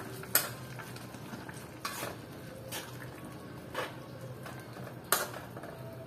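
A metal spoon stirring a wet banana-blossom and okra stew in a metal pan, clinking against the pan about five times, over the steady simmer of the cooking liquid.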